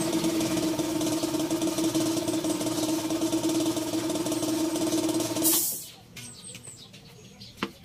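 Air compressor running steadily, then cutting out about five and a half seconds in with a short hiss of released air. A single sharp click near the end.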